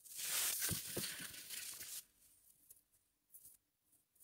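Gift wrapping rustling and tearing as a present is opened by hand, with a few sharp crackles, lasting about two seconds.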